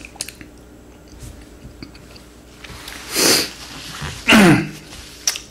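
A person's breath sounds close to the microphone: a loud rushing breath about three seconds in, then a voiced exhale that slides down steeply in pitch.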